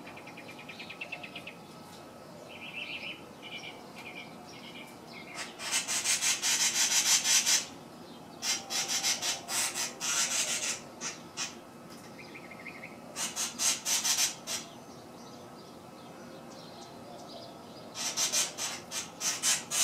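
Cactus wren scolding at a cat under the tree: four bouts of harsh, rapid rasping chatter, each a second or two long. Fainter, higher chirping comes in between, mostly in the first few seconds.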